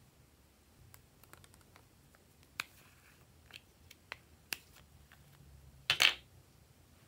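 Small round plastic containers handled in the hands: scattered light plastic clicks and taps, with a louder, slightly drawn-out plastic snap about six seconds in.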